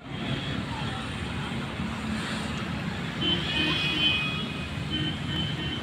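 Steady outdoor background rumble, with a few faint thin high tones about halfway through.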